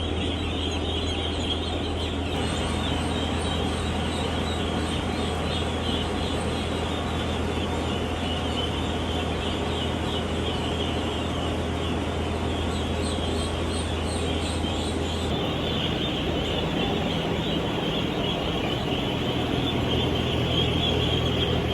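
A large flock of farmed ducks calling all at once in a dense, continuous chatter of overlapping calls. A steady low hum runs underneath and drops out about two-thirds of the way through.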